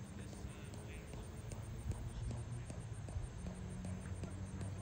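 Steady low outdoor rumble with scattered light clicks and a brief faint voice.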